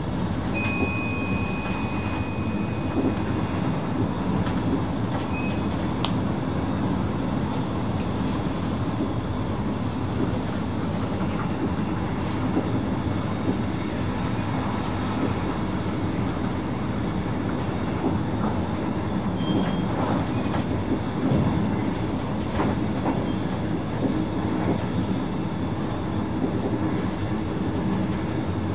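NS VIRM double-deck electric train running along the line, heard from the driver's cab: a steady rumble of wheels on rail. A brief high tone sounds near the start.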